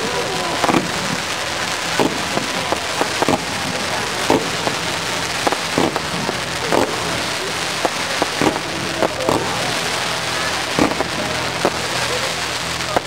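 Fireworks display: fountains and rising comets giving a steady crackling hiss, with sharp bangs about once a second.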